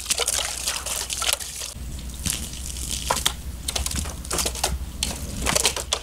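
Garden hose water splashing onto a plastic toy excavator: a steady spray hiss with irregular sharp ticks of water striking the plastic.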